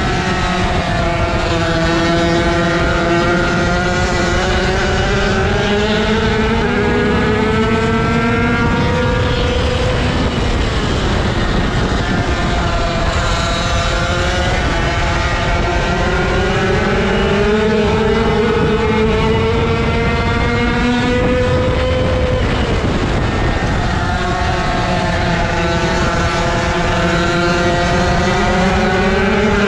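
125 cc motocross bike engine heard close up from on board, racing under throttle. Its pitch climbs steadily for several seconds at a time and falls off sharply twice, about ten seconds in and again after twenty seconds, as the rider backs off before climbing again.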